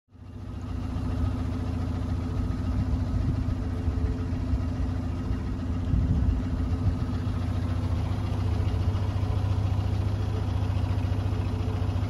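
Narrowboat's engine running steadily under way, a low even hum with a strong deep tone. It fades in from silence at the start.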